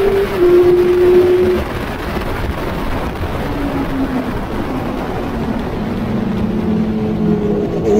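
Racing motorcycle engine heard from onboard at high revs with wind rush on the microphone. It breaks briefly just after the start as it changes gear. About a second and a half in the throttle closes and the note drops lower and quieter, then climbs again near the end.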